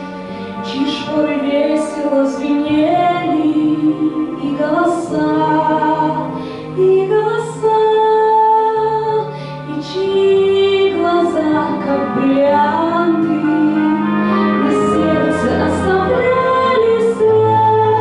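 A woman singing a slow song in long held notes with vibrato, over instrumental accompaniment.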